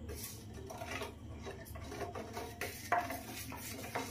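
Metal spoon scraping and clinking against a stainless steel pot as spice powder is stirred into sugar syrup, with a sharper clink about three seconds in.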